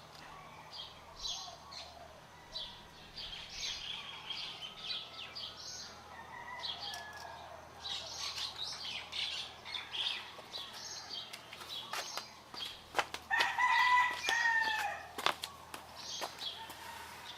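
Small birds chirping throughout, and a rooster crowing once about thirteen seconds in, the loudest sound. A few sharp clicks come around the crow.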